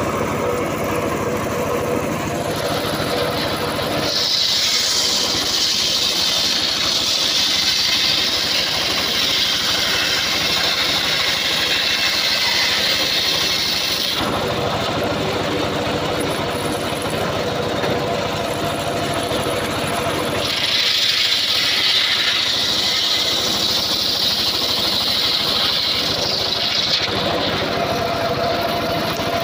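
Homemade circular sawmill running, its large blade ripping a log lengthwise. There are two long cuts: a loud, high-pitched hiss while the blade is in the wood, from about four seconds to fourteen and again from about twenty to twenty-seven, with the machine running steadily between them.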